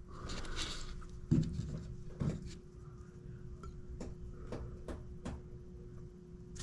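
A handful of light knocks and clicks spread over a few seconds, the two loudest early on, over a faint steady hum.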